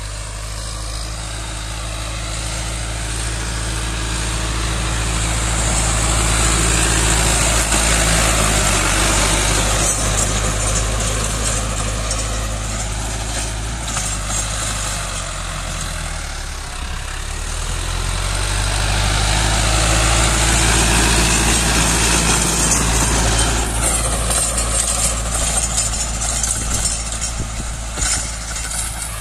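Tractor engine running under load while pulling a rear rotary tiller through the soil, the tiller's churning mixed in with the engine. It grows louder, eases off briefly around the middle, then grows louder again.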